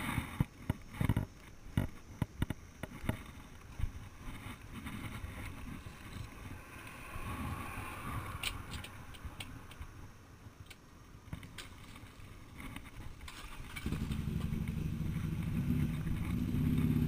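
Ducati 795's air-cooled L-twin starting about fourteen seconds in and running steadily, its low note growing louder near the end. Before that come scattered clicks and knocks of handling the bike.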